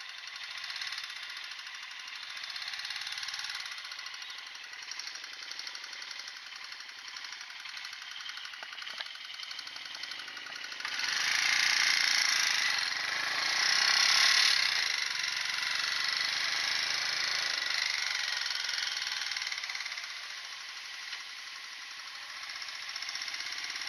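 Motorcycle engine running with a fast, even putter of firing pulses. It gets louder and its pitch rises and falls from about halfway through, then settles back near the end.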